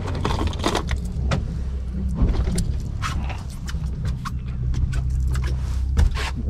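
A boat's engine running with a steady low hum, under a scatter of clicks and rattles of fishing tackle being handled: lures clattering as they are picked from a plastic tackle box, then the rod and reel.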